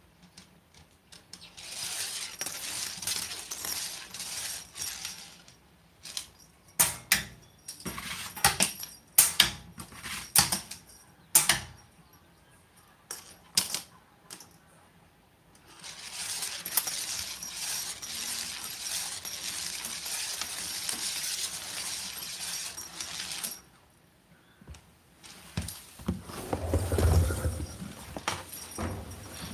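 A feather cat-teaser toy on a cord dragged and flicked across a wooden floor: two long stretches of swishing, scraping rustle, with a run of sharp, metallic-sounding clicks and jingles between them. A few low thuds come near the end.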